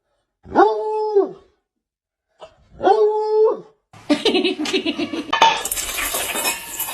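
A dog giving two long, even howling cries about two seconds apart. From about four seconds in comes a sudden noisy stretch of clattering.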